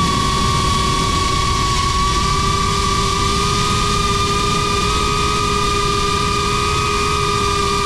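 GEPRC Crown HD cinewhoop FPV drone's brushless motors and ducted propellers whining at a steady pitch over a low rumble.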